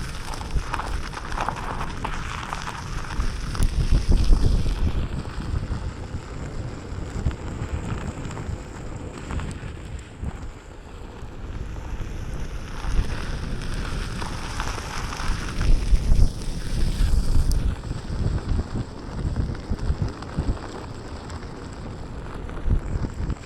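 Wind buffeting the microphone during a Onewheel ride: a gusty rumble that swells and fades, loudest about four seconds in and again about sixteen seconds in.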